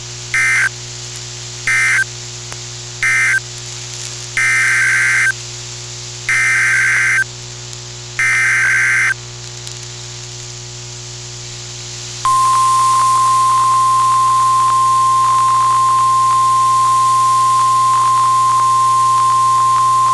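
NOAA Weather Radio alert signalling over static hiss: three short screeching SAME data bursts, which close the previous message, then three longer data bursts carrying the header of a new alert. About 12 seconds in, the steady 1050 Hz weather-radio warning alarm tone starts and holds for about nine seconds, announcing a severe thunderstorm warning.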